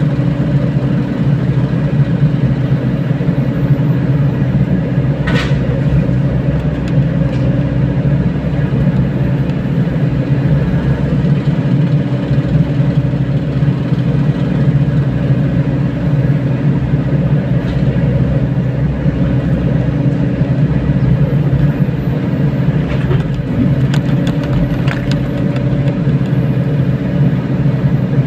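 Mini excavator's diesel engine running steadily, with a few short knocks about five seconds in and again near the end.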